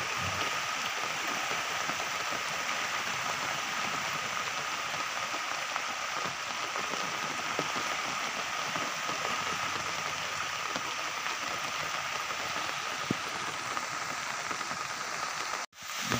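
Steady hiss of rain and rushing muddy floodwater, cutting out briefly near the end.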